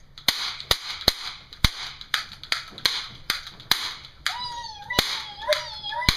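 Toy cap gun firing a rapid string of sharp pops, about two a second. A high wavering tone glides up and down over the last two seconds.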